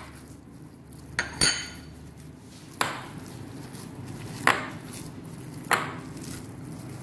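Hands mixing minced chicken and chopped vegetables in a glass bowl, with about five sharp clinks as the hand knocks against the glass, spaced one to two seconds apart.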